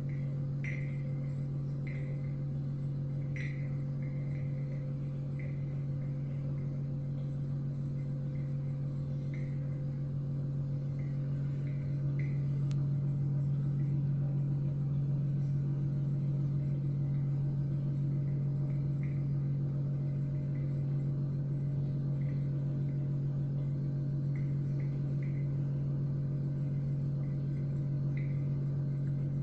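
Benchtop magnetic stirrer running with a steady low hum, with faint, scattered light ticks throughout.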